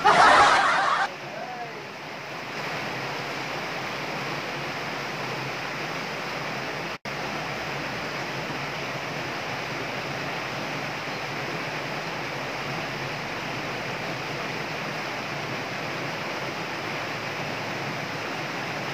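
Steady rush of shallow water pouring and foaming over a concrete ledge, with a brief loud burst of noise in the first second.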